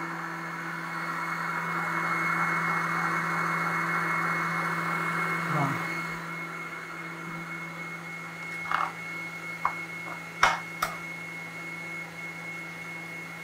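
Electric kitchen mixer running steadily, beating cheesecake cream in its bowl, with a steady hum and a high whine. A few sharp knocks come about two-thirds of the way through.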